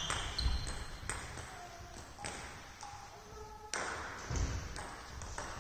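Table tennis ball clicking sharply on the table and bats, a handful of separate ticks at uneven spacing, with a few short squeaks.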